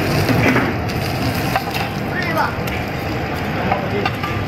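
Whole gourami frying in oil in a flat pan over an open stove flame: a steady sizzling hiss with scattered crackling pops, over a low burner rumble.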